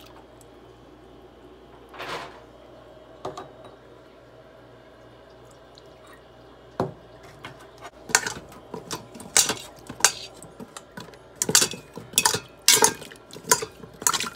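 A metal spoon clinking and scraping against the stainless steel inner pot of an Instant Pot as carrots are stirred in their marinade, with many sharp clinks from about eight seconds in. Near the start, a short soft splash of liquid being poured into the pot.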